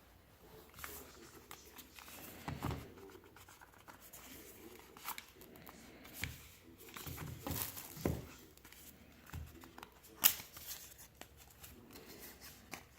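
Product packaging being handled and opened: scattered rustles, light scrapes and clicks, with one sharper tap about ten seconds in.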